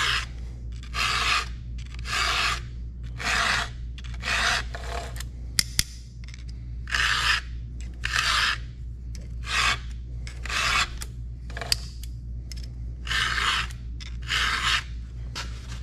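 Round file rasping by hand across the cutters of a 3/8-pitch full-chisel chainsaw chain, about one stroke a second with a short break about three-quarters of the way through, sharpening the teeth.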